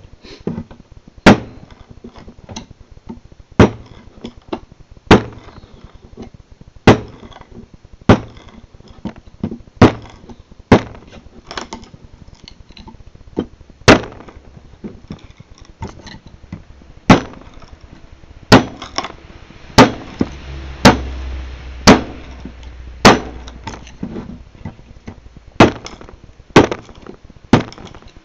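Randall Model 28 knife chopping into hard beech wood: sharp, separate blows at about one a second, unevenly spaced, each with a short knock of wood.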